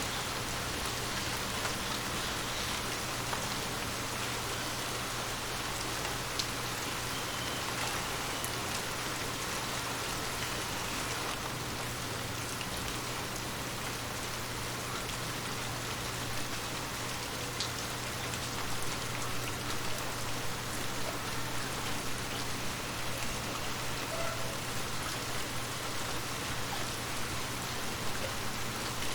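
Steady rain falling, with scattered drops tapping now and then; the patter grows a little more uneven in the second half.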